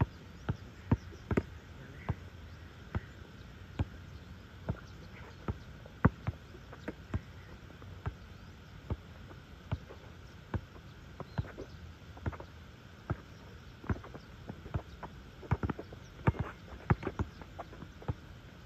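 Basketball dribbled on an outdoor asphalt court: sharp single bounces about once a second, quickening into a rapid run of bounces near the end.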